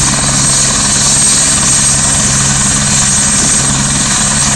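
Light helicopter running on the ground with its rotor turning: a loud, steady drone with a low hum and a thin high whine over it.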